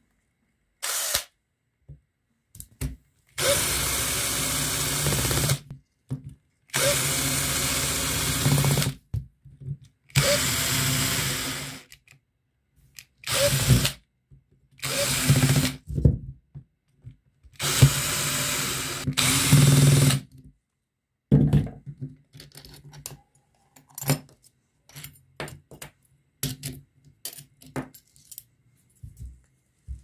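Handheld power drill run in a series of short bursts of one to two seconds, each spinning up with a brief rising whine, during the disassembly of a small electric fan motor. Small clicks and rattles of parts being handled follow in the last third.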